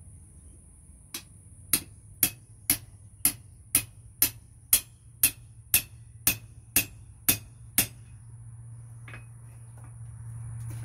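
Blacksmith's hand hammer striking a metal rod held on an anvil: fourteen ringing metal-on-metal blows at about two a second, stopping about eight seconds in.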